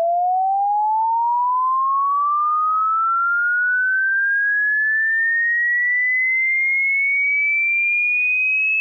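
Electronic sine-wave tone sweeping slowly and smoothly upward in pitch, from a low hum to a high whistle-like pitch, at an even loudness. It cuts off suddenly at the end.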